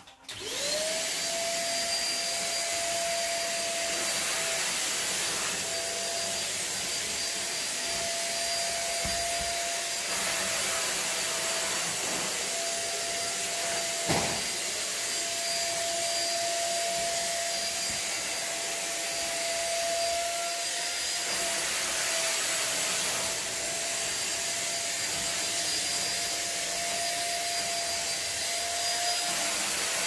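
Deerma DX700 stick vacuum cleaner switching on and spinning up within the first second to a steady high whine over a rush of air. It runs on steadily as its nozzle is pushed over a mattress, with one short knock about midway.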